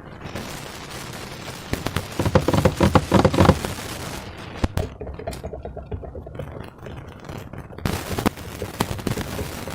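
Slime being squeezed and worked by hand: rapid wet crackling and popping with some scraping, loudest in a dense run about two to three and a half seconds in and again briefly near the end.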